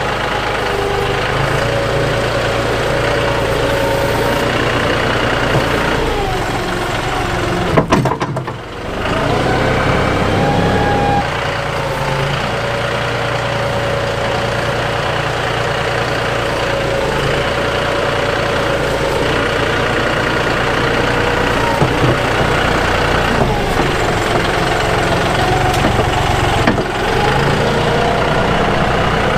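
John Deere 5055E tractor's three-cylinder diesel engine running while it pulls a land plane through backfill, its pitch drifting up and down with the load, with a brief drop about eight seconds in.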